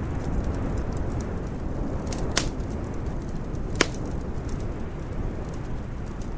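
Fireplace crackling over a steady low rumble, with scattered small ticks and two sharp pops that stand out, about two and a half seconds in and again about a second and a half later.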